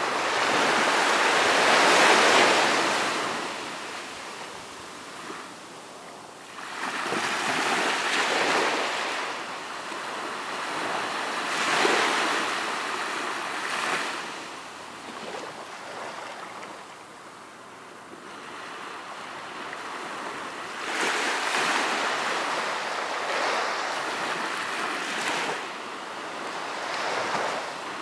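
Ocean waves breaking and washing onto a beach, a rushing wash that swells and falls away every few seconds.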